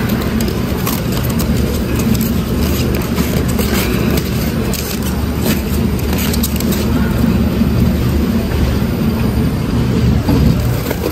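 Baggage wrapping machine wrapping luggage in plastic stretch film: a steady low motor hum with the film crackling and scraping as it pulls off the roll.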